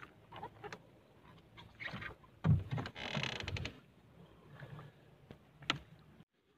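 Gear being handled in a small paddle boat while a handline is worked on a round spool: scattered knocks and clicks, a heavy thud about two and a half seconds in, then about a second of rustling, and a sharp click near the end.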